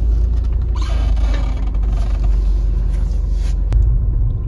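Car rumble heard from inside the cabin as the car moves slowly, a steady low drone of engine and tyres. A light hiss comes in for a few seconds in the middle, and a single sharp click sounds near the end.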